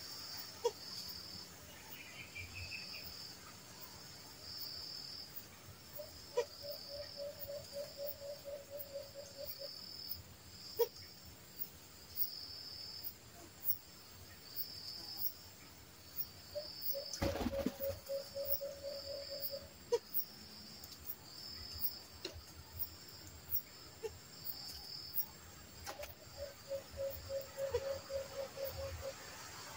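White-eared brown dove (alimokon) calling: a rapid series of low hooting notes lasting a few seconds, given three times about ten seconds apart. A regular pulsing high insect chirp runs underneath, and there is a sharp knock just before the second call.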